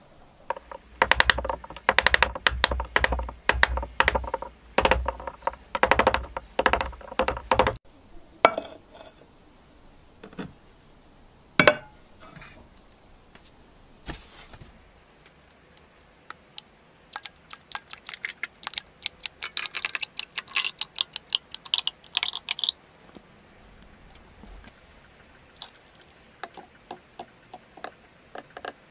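Rapid, irregular clicking and knocking of metal being handled on a workbench: a rusty hammer head and a tin can. There is a dense run of knocks that stops abruptly, a few single knocks, then a second run of quicker, lighter clicks.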